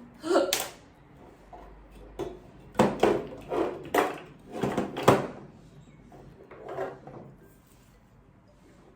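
Objects being handled and set down: a run of separate knocks and clatters, most of them bunched between about three and five seconds in.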